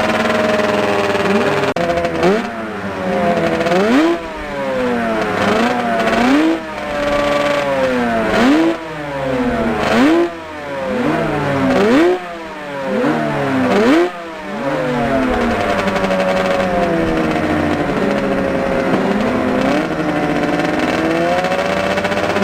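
Motorcycle engine blipped on the throttle again and again, each rev rising sharply and falling back, about once a second, the rev-matching blips of downshifts; after about 14 s it settles to steady running.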